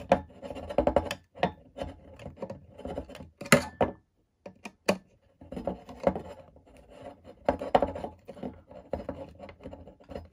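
Handling noise of a plastic wheel pant being worked against an aluminium landing-gear leg: irregular rubbing and scraping with small clicks and knocks, pausing briefly about four seconds in.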